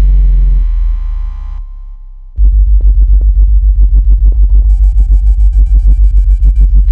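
Synthesized water-ejection tone track for earbud speakers. A stack of steady tones over a very deep bass fades out about a second and a half in. About two and a half seconds in, a loud, very deep bass starts pulsing several times a second, and a fast run of high tones joins it for about two seconds.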